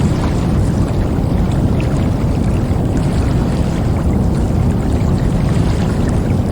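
River water flowing steadily: a dense, low rushing with small scattered splashes and trickles on top.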